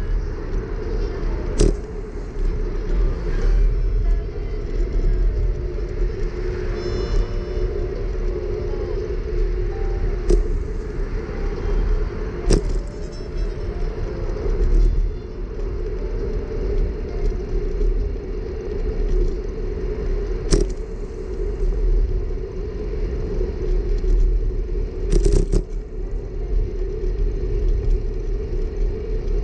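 Wind buffeting and road rumble picked up by a camera on a moving bicycle's handlebars, with sharp knocks about five times as the bike goes over bumps.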